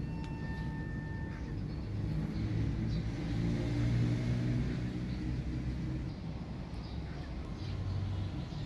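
Low rumble of a passing motor engine, swelling to its loudest about four seconds in and then easing off.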